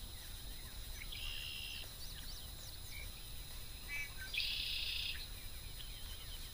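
Birds calling at dawn: scattered short chirps, and two buzzy calls, a short one about a second in and a longer, louder one past four seconds, over a faint steady high hum and low rumble.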